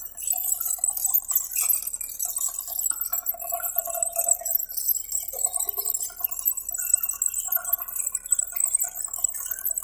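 Tractor-mounted chain trencher digging: its steel chain and cutting teeth running through the soil give a continuous, irregular metallic jingling and clinking.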